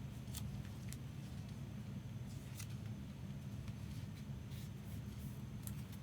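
Trading cards being handled and slid into card sleeves: scattered short ticks and swishes over a steady low hum.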